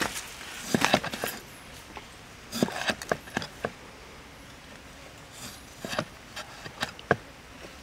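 Large knife slicing a lime on a wooden chopping board, the blade knocking sharply on the wood in three short clusters of chops.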